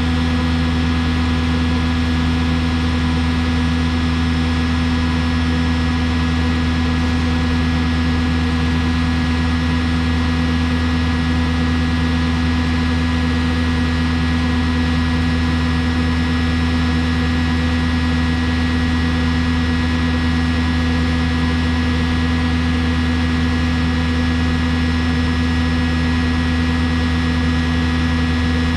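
Diesel engine of a Yale 175 forklift running steadily under load, its hydraulics deadheaded against relief to heat the exhaust for the SCR system, an even drone with steady low tones.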